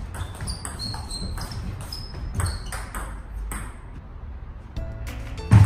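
Table tennis rally: the celluloid ball clicks rapidly off paddles and table with short high pings, under the quick shuffling small steps (jan-bal footwork) of the players' shoes on a wooden floor. There is a short lull about four seconds in.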